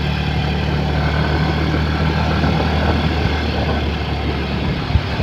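A vehicle's engine running steadily, a low even hum.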